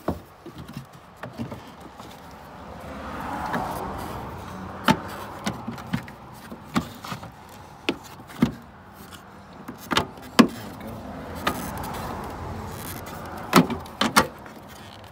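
Plastic clicks, knocks and scraping as a Honda Civic taillight assembly is worked loose by hand and pulled out of the car body. Sharp knocks are scattered through it, with two longer stretches of rubbing.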